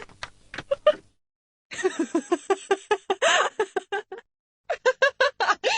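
A woman laughing in short, rhythmic 'ha-ha' pulses: three separate laughs, with brief silences about a second in and about four seconds in.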